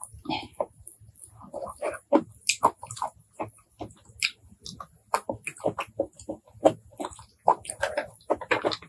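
Close-miked wet chewing, slurping and lip-smacking of shellfish meat, with a rapid, irregular run of sharp mouth clicks.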